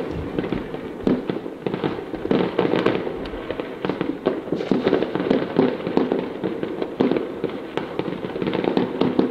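Fireworks going off in a rapid, irregular string of bangs and crackles.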